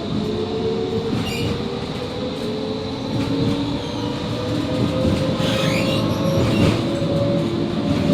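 Interior of a Končar TMK 2200 low-floor tram on the move: the traction drive's whine rises slowly in pitch as the tram picks up speed, over the rumble of wheels on rail. Brief wheel squeals come about a second in and again around six seconds in.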